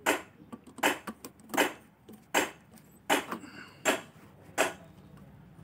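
Small screwdriver clicking in the screw of a PCB screw terminal as it is turned to clamp a speaker wire: seven sharp metallic clicks, about one every three quarters of a second.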